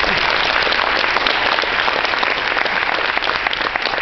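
Congregation applauding: many people clapping steadily.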